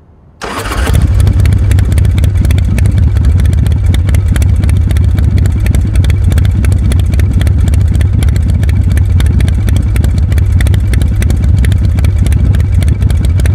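A motorcycle engine running steadily and loud, with a rapid, even pulse. It cuts in just after the start and stops abruptly near the end.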